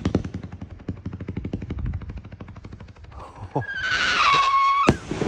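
Firework crackling in a fast, even run of pops that fades out. Then, about three seconds in, a firework whistle starts, slides down in pitch and holds, and a single sharp bang cuts it off near the end as the shell bursts.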